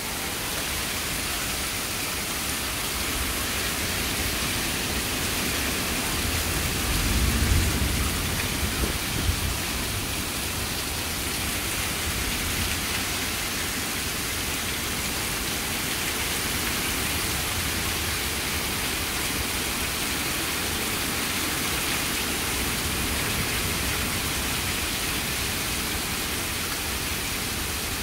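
Heavy rain pouring steadily in a thunderstorm, an even hiss that does not let up. A louder low rumble swells for a couple of seconds about seven seconds in.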